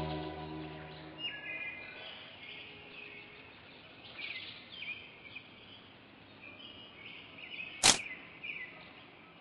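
Sustained music fades out in the first second or so, then scattered faint bird chirps. Near the end comes a single sharp click as a compact submachine gun is handled.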